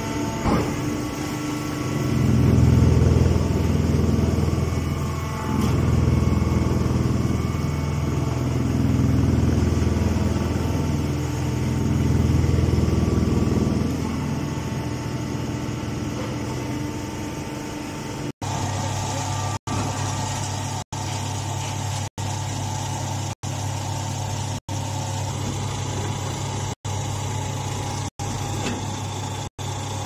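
Chopped straw pressing and bagging baler and its feed conveyor running: a steady machine hum that swells louder for several seconds early on, then settles. In the second half the sound is broken by brief silent gaps about every 1.3 seconds.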